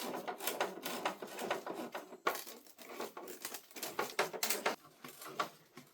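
Irregular clicks and taps of hard plastic parts and small screws being handled as a car headlight housing is put back together.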